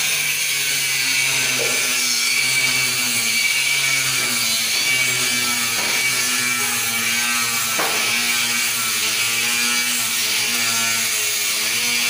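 Steady construction-site machinery noise: a continuous mechanical whir with a loud hiss and a low hum, and a couple of faint knocks partway through.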